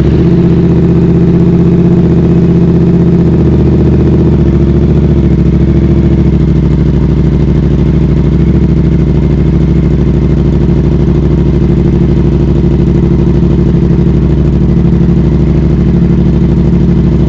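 Yamaha R7 sport bike engine idling steadily just after being started on fresh oil.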